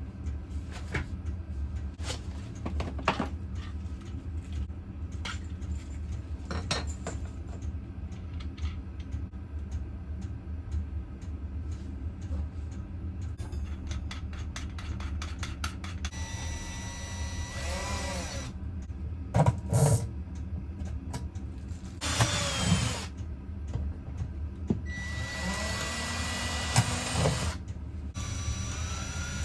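Power drill running in four short bursts in the second half, its motor whine rising within each run. Before that come scattered clicks and taps of hand work, all over a steady low hum.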